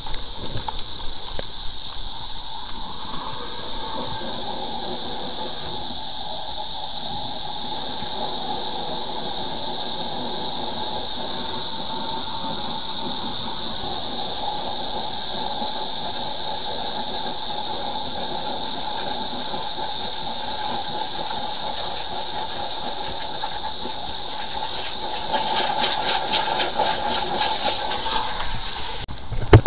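High-pressure drain jetter running, its hose down a drain: a loud, steady hiss of water jetting through the nozzle, with a faint whistling tone under it. Near the end the hiss breaks into a rapid flutter.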